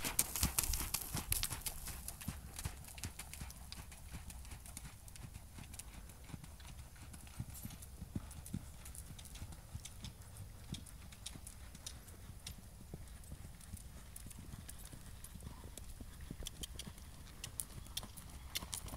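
A ridden horse's hoofbeats on sand arena footing, a quick run of soft thuds that is louder near the start and again near the end as the horse comes close, and fainter in the middle as it goes away.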